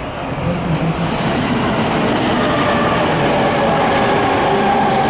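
Electric train running past on the line, getting louder about half a second in, a steady rumble with a faint whine of tones over it.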